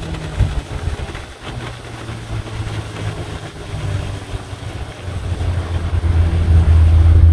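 Speedboat engine running as the boat passes, its low drone growing steadily louder toward the end as it comes closer.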